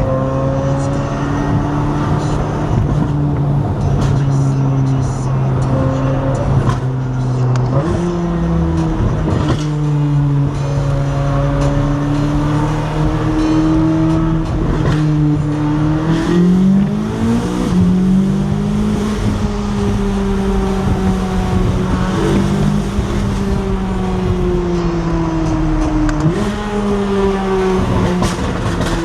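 C8 Corvette Z06's flat-plane-crank 5.5-litre V8 running at steady cruising revs through its titanium exhaust, over road and tyre noise. The engine note steps up in pitch about eight seconds in, climbs again around the middle as the revs rise, then holds steady.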